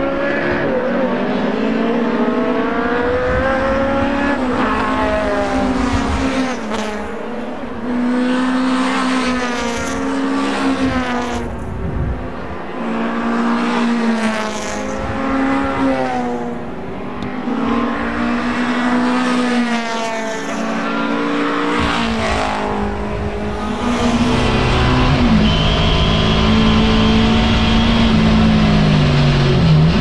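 Several vintage small-engined sedan race cars at full throttle. Their engines rise in pitch and fall back again and again as they shift up through the gears, getting louder over the last few seconds as the pack nears.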